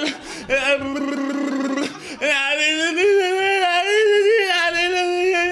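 A voice holding long, drawn-out notes: one of nearly two seconds, then after a short break a higher one that wavers slightly and is held for about three seconds before it cuts off sharply.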